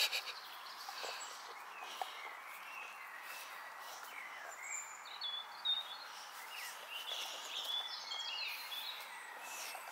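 Songbirds chirping with short, sliding calls over steady outdoor ambience. A boxer dog bites into a whole cucumber with a few short, sharp crunches, the loudest right at the start and another about six seconds in.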